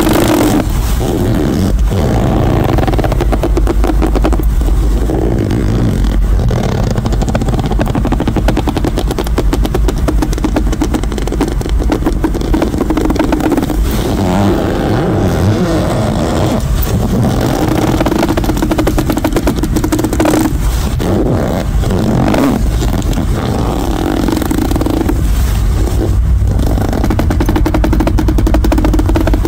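Hand fart noise: air forced out against the hand in a long, rapid, flapping buzz that wavers in pitch, with only brief breaks.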